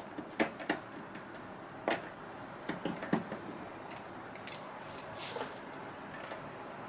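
Scattered light clicks and taps from handling the upturned plastic casing and screws of a Roland FP30 digital piano, with a brief scrape about five seconds in.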